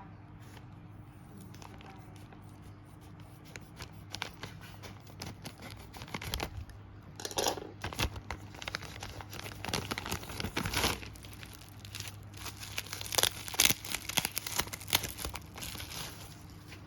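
Packaging being handled and unwrapped, crinkling and tearing in irregular bursts that start a few seconds in and grow louder through the middle.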